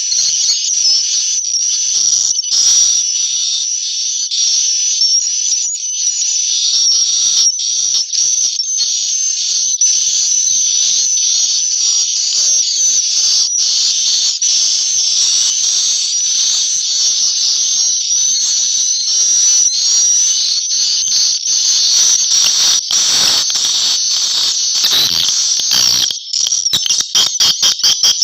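Many swiftlets twittering inside a swiftlet house: a dense, continuous chatter of high chirps. Near the end a run of rapid, evenly spaced clicks comes through.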